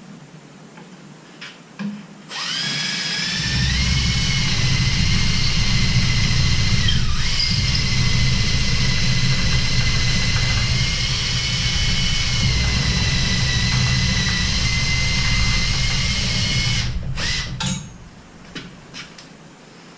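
Cordless power drill running under load into wood for about fifteen seconds. Its motor whine rises as it spins up a couple of seconds in, dips briefly partway through, then holds steady and stops near the end.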